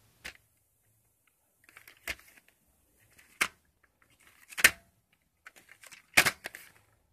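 A VHS tape case handled and turned over in the hand, giving five sharp plastic clicks and knocks about a second and a half apart, with a light rustle of fingers on the case. The last two knocks are the loudest.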